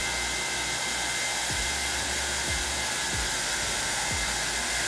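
Steady rushing noise of an air-moving machine such as a fan or blower, running evenly with a few faint steady high tones in it.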